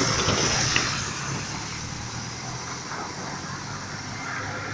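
Pickup truck driving off along a flooded street, its tyres hissing through the water and fading over the first couple of seconds, with thunder rumbling.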